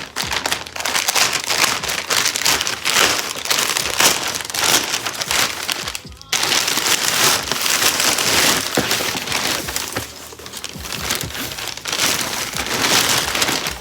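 Plastic packaging being torn open and crinkled by hand while a parcel is unpacked, a dense crackling that breaks off briefly about six seconds in.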